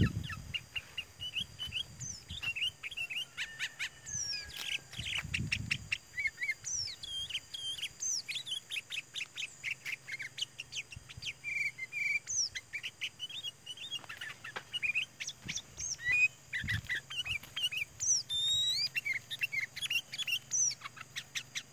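Sooty-headed bulbul calling: a busy run of short chirping and bubbly notes with quick up-and-down pitch sweeps, repeated throughout.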